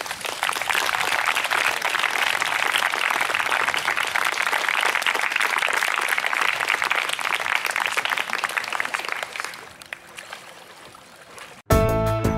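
Applause from a group of onlookers, many hands clapping for about nine seconds before dying away. Music starts abruptly near the end.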